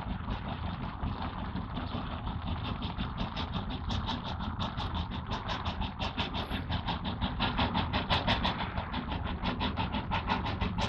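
Steam tank locomotive dressed as Thomas the Tank Engine working hard up a grade, its exhaust chuffing at about five beats a second over a low rumble. The chuffs grow louder and sharper as it draws nearer.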